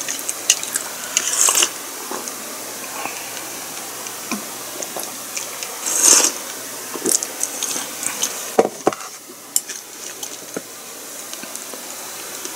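Eating at the table: scattered clicks of chopsticks against bowls and dishes, with a sip of miso soup slurped from a wooden bowl about six seconds in.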